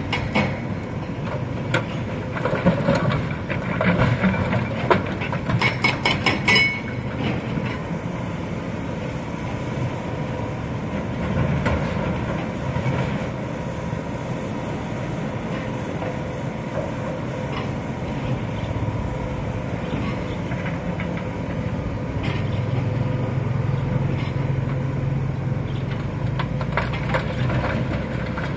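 Hitachi Zaxis 210F excavator's diesel engine and hydraulics running steadily while loading a dump truck. A cluster of sharp knocks and clatter comes in the first several seconds, and the engine grows louder and heavier for the last few seconds.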